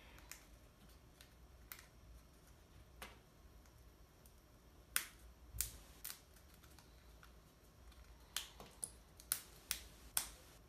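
Small laser-cut plywood puzzle parts handled and pressed together by hand, giving scattered sharp wooden clicks and snaps. They come more often in the last few seconds.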